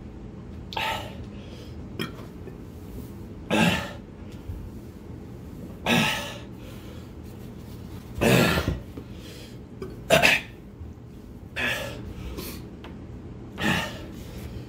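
A man coughing and breathing out hard in sharp huffs, about seven loud bursts roughly every two seconds, from the burn of the 9-million-Scoville chilli extract in his mouth.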